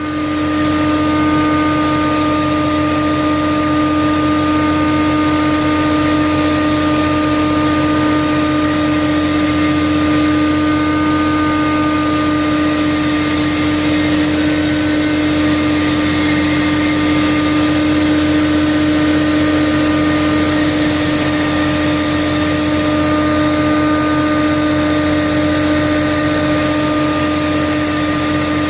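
A fishing trawler's engine and net-drum machinery running as the drum hauls in the trawl bridles: a steady drone with a constant pitched hum that does not change.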